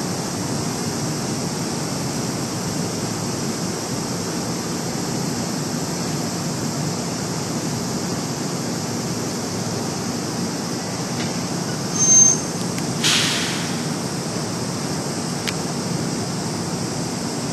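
Kintetsu 16000 series electric limited express train rolling slowly into a platform with a steady low rumble. About twelve seconds in comes a brief high squeal, the loudest sound, followed straight after by a short hiss of air that fades, as the train brakes to a stop.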